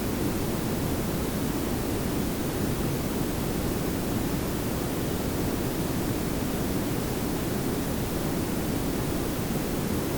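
Layered pink and brown noise: a steady, even hiss over a low rumble, with no changes.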